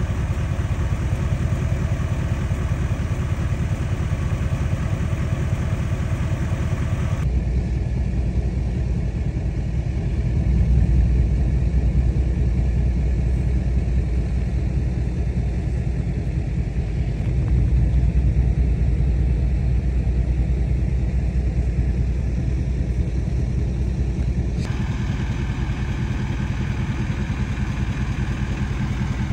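Pickup truck engines idling: a steady low rumble, with abrupt shifts in tone about 7 seconds in and again near 25 seconds.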